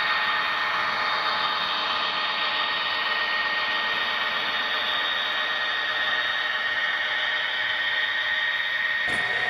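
HO-scale model freight train running past: a steady rushing hiss with a constant high hum. The sound changes abruptly near the end.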